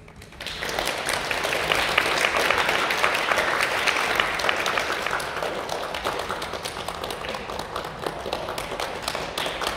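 Applause from a small group of people clapping, starting about half a second in and keeping up a steady, dense patter.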